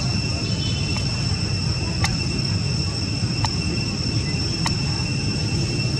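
Insects droning: a steady, unchanging high hum in two tones over a low rumble, with a sharp click about every second and a half.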